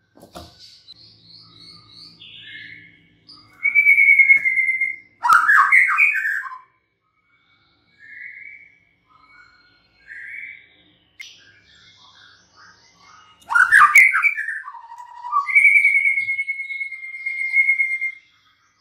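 White-rumped shama singing: a run of varied whistled phrases and quick chattering notes. It gives loud rapid bursts about four seconds in and again about thirteen seconds in, then holds one long steady whistle near the end.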